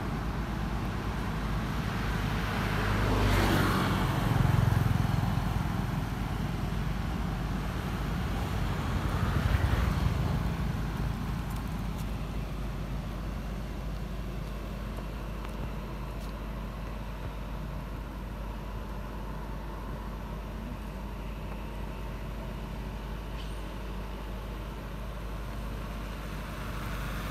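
Road traffic: one vehicle passes about three to five seconds in and another about ten seconds in, each swelling and fading, over a steady low traffic hum.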